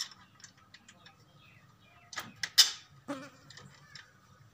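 Metal clicks and knocks as a motor mounting bracket is handled and pressed into place against a bicycle's rear sprocket, a few sharp clinks clustered past the middle, the loudest about two and a half seconds in. A faint steady low buzz runs underneath.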